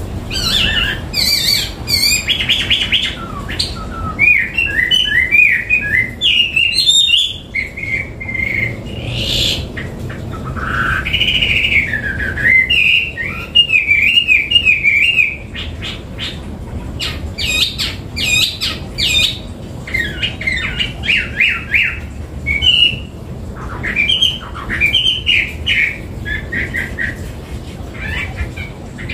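Chinese hwamei (Garrulax canorus) singing in full song: a long run of varied whistled phrases and quick trills, over a low steady hum.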